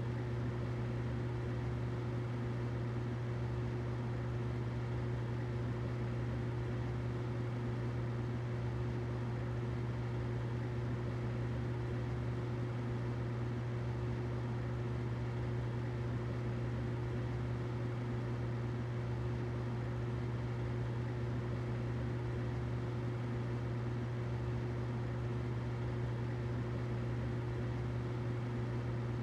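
Humidifier running: a steady, unchanging low hum with a faint hiss above it.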